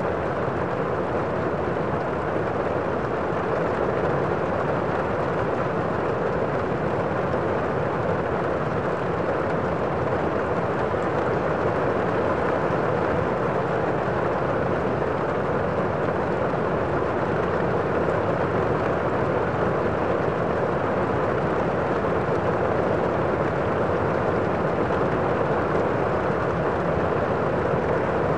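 A steady, even rushing noise that does not change, with no strokes, knocks or breaks in it.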